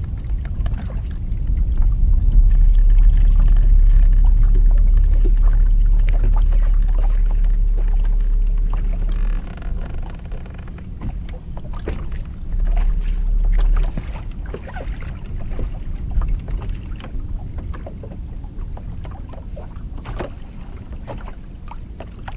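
Wind buffeting the microphone in heavy low gusts, strongest in the first half and again briefly later, over small choppy waves slapping and lapping against the boat's hull.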